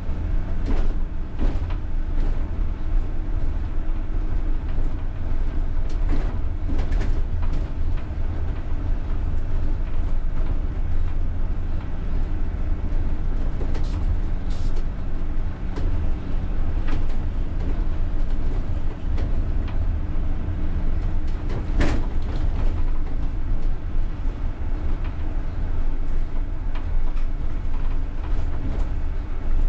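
UTTZ-6241.01 (MAZ-203T) trolleybus driving, heard from the driver's cab: a steady low rumble of the body and tyres with a faint steady hum above it. Short knocks and rattles come now and then, the loudest about 22 seconds in.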